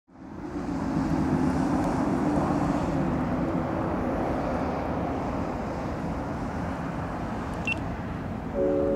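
Steady outdoor rumble of distant vehicle noise, with a low droning hum that fades after the first few seconds. A short high beep sounds near the end, and music with held chords comes in just before the end.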